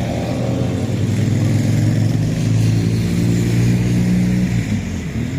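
A vehicle engine running steadily with a low, even hum, which dips and shifts in pitch briefly near the end.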